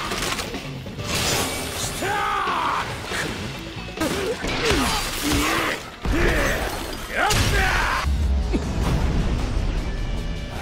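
Anime battle soundtrack: dramatic music mixed with sword slashes, whooshes and crashing impact effects.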